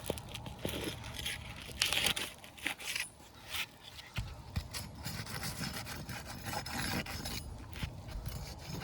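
Pry bar scraping under asphalt roof shingles as they are lifted off the roof deck, with irregular scraping, cracking and tearing of the brittle shingles and a louder stretch about two seconds in.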